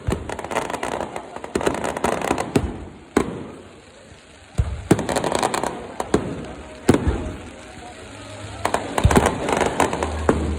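Fireworks going off close by: a rapid, irregular series of sharp bangs over crackling, with several louder reports scattered through.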